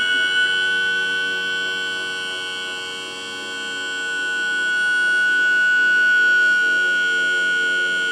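Electric-hydraulic pump raising a Mercury Pro XS outboard motor: a steady, high-pitched whine. Its level sags slightly about three seconds in, then builds again.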